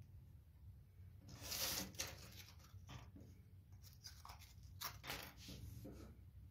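Wooden ice-cream sticks handled on a wooden tabletop: a short scraping rustle about a second in, then a run of light clicks and taps as sticks are picked up and set down, over a faint steady low hum.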